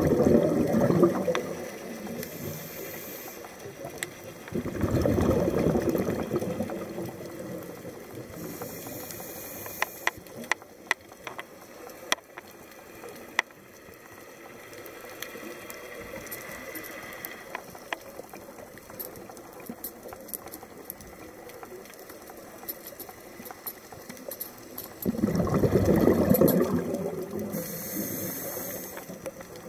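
Scuba diver breathing through a regulator underwater: three loud rushes of exhaled bubbles, at the start, about five seconds in and near the end, each followed by a short hiss of inhaling, with a long pause between the second and third breaths. A few sharp clicks sound in the middle.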